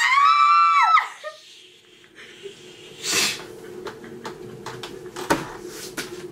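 A woman's high-pitched squealing laugh, held for about a second, then quieter breathy laughter and a short breathy rush of air, with small clicks and rustles over a faint steady hum.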